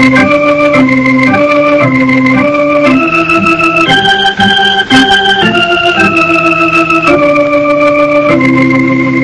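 Organ playing a melody of held notes, climbing to its highest notes about halfway through and stepping back down.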